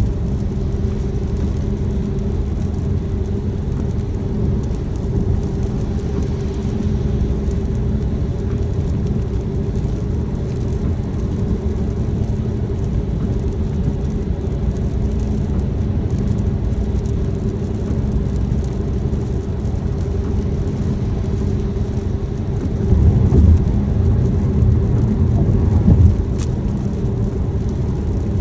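Car driving along: a steady low engine and tyre hum, with a deeper rumble swelling for a few seconds near the end.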